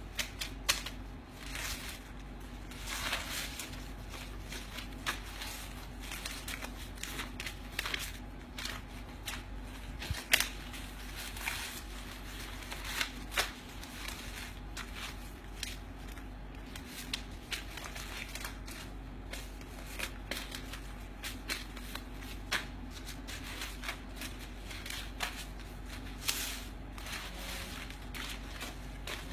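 Loose paper banknotes, US $100 bills, being gathered and shuffled by hand: irregular crisp rustling and crackling of paper, with a faint steady hum underneath.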